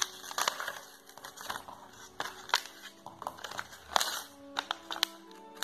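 Plastic blister pack being torn open by hand, with irregular sharp crackling and crinkling of the plastic and paper backing, loudest about half a second, two and a half and four seconds in.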